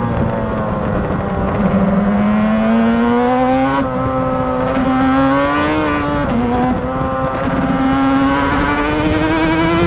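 Suter MMX 500 two-stroke V4 racing engine running hard on track. Its pitch climbs slowly as the bike accelerates out of a long corner, with two short dips about four and six seconds in where it shifts up, over wind and exhaust noise.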